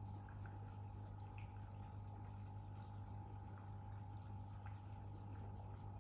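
Aquarium filter pump running: a steady low hum with faint trickling water and small drips scattered through.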